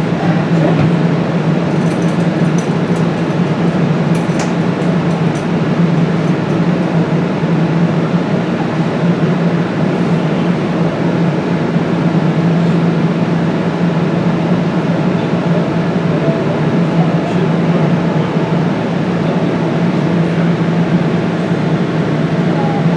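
Steady hum and rumble inside a DART light rail car, with a strong low drone held throughout.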